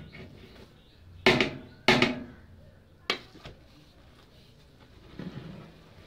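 A metal ladle clanking against a large aluminium cooking pot while cooked biryani rice is turned: two sharp clanks about half a second apart, a lighter one a second later, then a softer scrape near the end.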